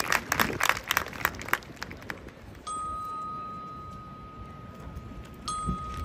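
Audience applause dying away, then a single high bell note struck once and left to ring out with a long, slow decay, struck again on the same pitch near the end.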